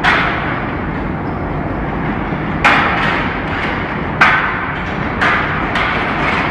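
Leather-factory machinery running with a steady din, broken by several sharp knocks at uneven intervals.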